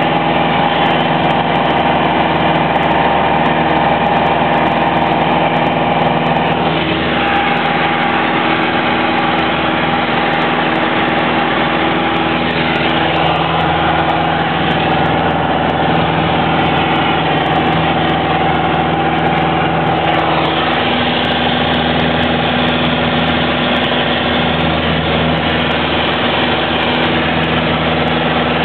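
Piper Warrior's four-cylinder Lycoming engine and propeller droning steadily in flight, heard inside the cockpit, with slight shifts in tone a few times.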